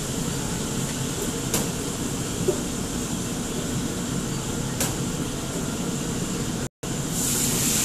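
Steady roar of a restaurant kitchen's extraction hood fan and gas wok burners, with a few faint clinks of cookware. The sound cuts out for a moment near the end, then comes back slightly louder and hissier.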